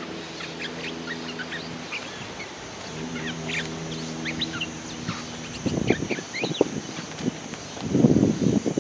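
Bulbuls chirping in short high calls throughout. A steady low hum runs under the first half, and loud rough low bursts come in about six seconds in.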